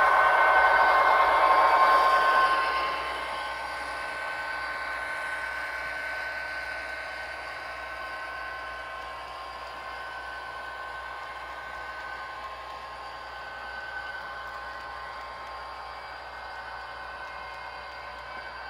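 Model Canadian Pacific SD70ACU diesel locomotive running along the layout with a train of covered hoppers. It is loud for the first few seconds, then drops off and runs on quieter and steady, with a few held tones over the running noise.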